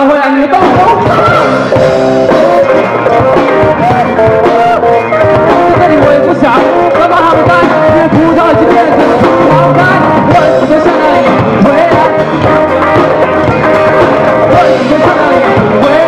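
Live rock band playing, with electric guitars, bass guitar and drum kit, and a male voice singing over it. The band comes in at full volume right at the start.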